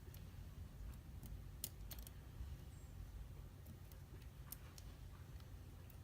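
Faint, scattered small clicks of pin tumblers and tools being handled while a Wilka euro cylinder lock is taken apart.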